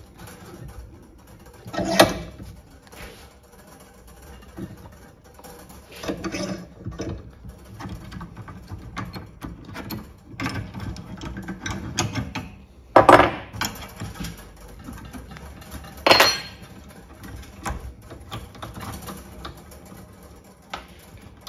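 Metal clicks, scrapes and clanks of a brake-line double-flaring tool being worked in a bench vise: the yoke and cone set on the flaring bar, the feed screw wound down to form the second stage of a double flare, and the yoke taken off again. Several sharp metal knocks stand out, the loudest about 13 and 16 seconds in.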